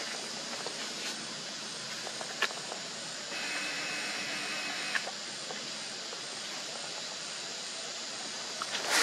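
Steady outdoor background hiss with a few faint clicks, and a faint steady tone for a couple of seconds in the middle.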